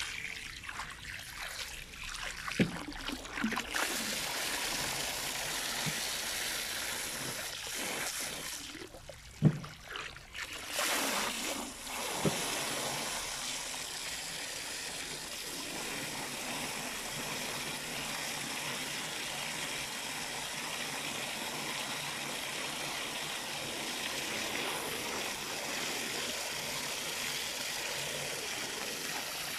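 Water running steadily into a tank as it is topped up. A few knocks come in the first dozen seconds, the sharpest about nine and a half seconds in.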